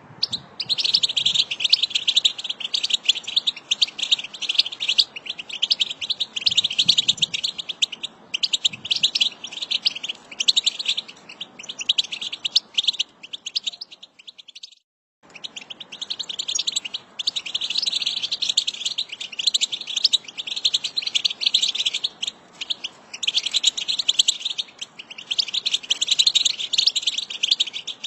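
A group of European goldfinches twittering and chattering in a dense, rapid run of calls. It breaks off for about a second midway, then resumes.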